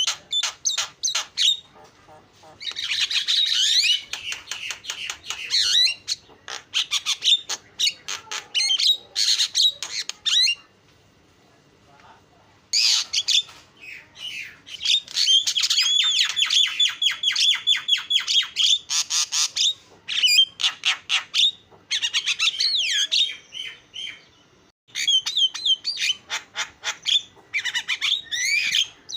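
Javan myna (jalak kebo) singing a fast, harsh chattering song: long runs of rapid squawky notes mixed with whistles. It breaks off for about two seconds a third of the way in and briefly again near the end.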